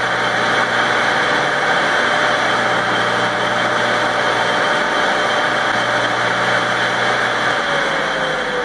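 Baldor CL3509 1 HP, 3450 RPM electric motor running at full speed with a steady whir and a constant tone, its cooling fan clear of the straightened fan shroud. Near the end it is switched off, and its tone starts to fall as it spins down.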